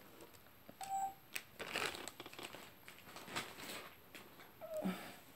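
Faint, intermittent rustling and crinkling of bundled lace trim being handled and set down on a table, with a few light taps.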